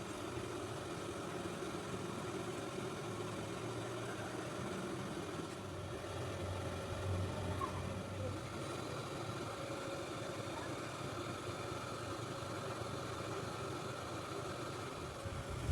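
A steady low mechanical hum with a faint drone, like a machine or engine running at idle.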